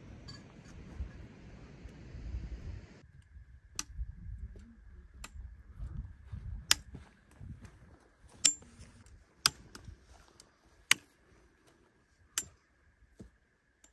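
Metal-tipped trekking poles clicking against rocks at a walking pace, a sharp click about every second and a half, over a low rumble of steps. A steady rush of noise for the first three seconds cuts off suddenly.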